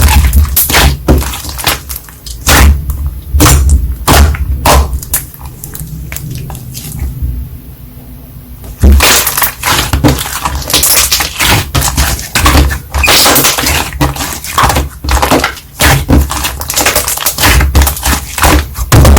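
Slime being squeezed and pressed by hand, making many quick crackling and popping clicks. The clicking eases off for a few seconds in the middle, then picks up again.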